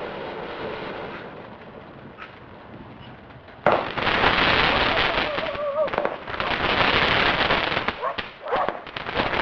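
A 'Vertep' K1836 consumer fireworks cake firing. It starts with a sudden bang about four seconds in, then a dense, continuous run of crackling shots and bursts that eases briefly twice.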